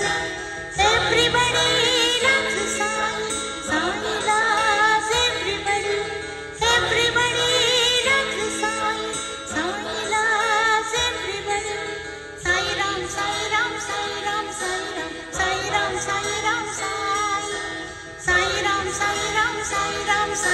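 Song with singing played loud through a YME Audio DJ sound system on sound check. A loud phrase starts again about every six seconds.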